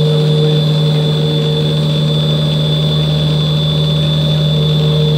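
Twin-shaft continuous paddle mixer running with a loud, steady hum from its geared drive motor, its paddles churning wet, lumpy material.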